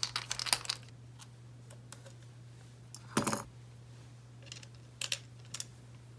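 Light metallic clicks and ticks of a screwdriver backing out a small screw on a rubber intake boot's clamp, and of the small metal parts being handled. There is a single louder clink a little over three seconds in, over a steady low electrical hum.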